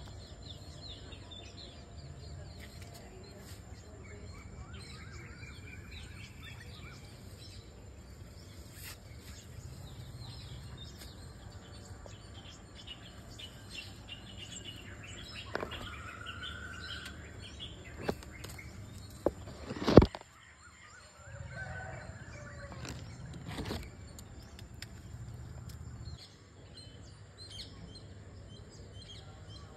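Birds chirping and calling over a steady low rumble, with one sharp knock about two-thirds of the way through.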